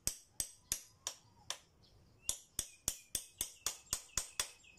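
Hammer tapping a tapered screwdriver-like wedge into the split of a motorcycle's fork clamp, about fourteen sharp metal-on-metal knocks: a few spaced taps, then a quick steady run of about four a second from about two seconds in. The wedge spreads the clamp so the stuck fork tube comes free.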